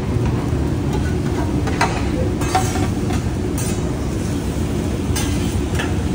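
Steady low rumble of a hibachi grill's exhaust ventilation, with five short metallic clinks as a steel tray and spatula knock against the steel griddle.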